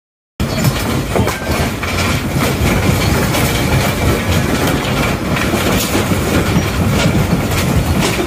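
A house shaking in a strong earthquake: a continuous loud rumble with dense rattling and clattering of furniture and belongings. It starts abruptly about half a second in.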